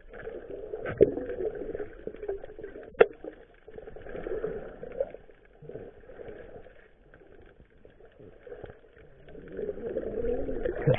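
Muffled underwater noise from a camera held below the surface: a rushing, bubbling wash with a couple of sharp knocks, about one and three seconds in.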